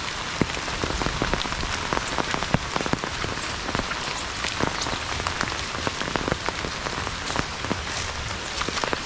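Heavy rain falling steadily, with many sharp drip and drop impacts close by on surfaces such as leaves or an umbrella.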